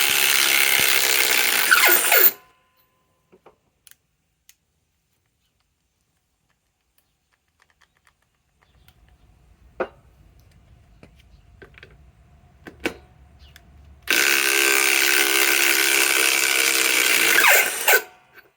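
DeWalt Atomic DCF921 cordless impact wrench hammering in two runs. The first stops about two seconds in; the second, about four seconds long, comes later, with a few handling clicks in the pause between them.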